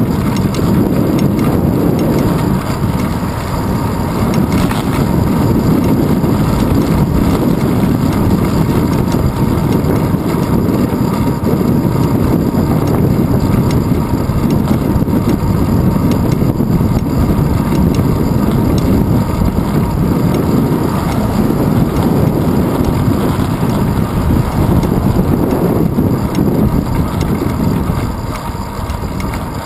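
Wind buffeting the microphone of a handlebar-mounted GoPro on a moving bicycle, mixed with tyre and road rumble: a steady, loud, low rushing noise that eases a little near the end.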